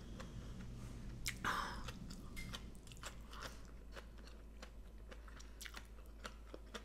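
A person chewing mouthfuls of Thai papaya salad with fresh shrimp and raw vegetables close to the microphone, with many small mouth clicks and one brief louder sound about a second and a half in.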